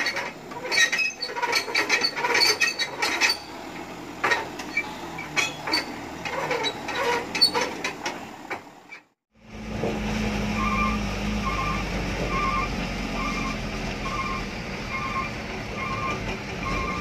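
Loaded dump truck on a rough dirt road: irregular clicks, knocks and rattles for about nine seconds. After a short break, a truck engine runs steadily, heard from the cab, with an electronic beeper going in pairs of short beeps about once a second.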